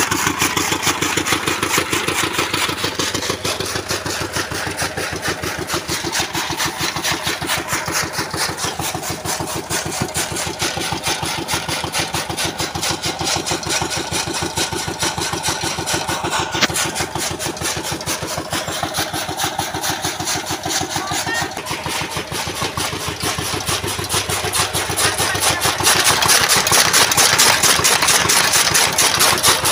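Belt-driven chaff cutter running steadily, its spinning flywheel blades and feed rollers chopping dry fodder stalks in a rapid, even clatter. It gets louder near the end.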